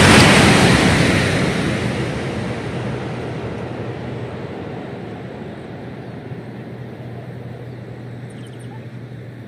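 CRRC high-speed electric train rushing past at speed, loudest at the start and fading steadily as it recedes along the track. A steady low hum runs underneath.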